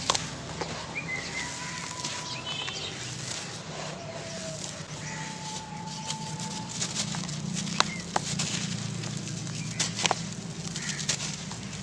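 Hands crumbling and rubbing a dry sand-cement cone into loose powder: continuous gritty rustling and crunching as dust and crumbs sift through the fingers, with a few sharp snaps as pieces break off.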